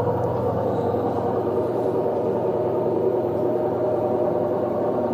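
LG front-loading washer-dryer spinning at about 600 RPM with a steady, loud roar and hum from its drum bearings: the roar is the sign of blown, worn-out drum bearings.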